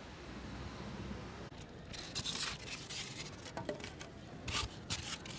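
Foam food trays being handled and set down on dirt ground: several short scrapes and rustles, the first about two seconds in and the last near the end.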